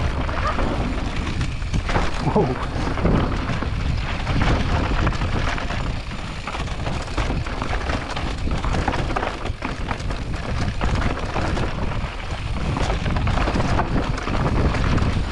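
Steady rush of wind on an action camera's microphone during a mountain-bike descent, with the tyres rumbling over the dirt trail and small knocks from bumps.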